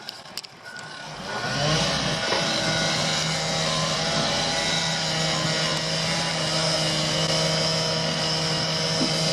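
A machine's engine picks up speed between one and two seconds in, then runs steadily at high speed while a pipe is being cut.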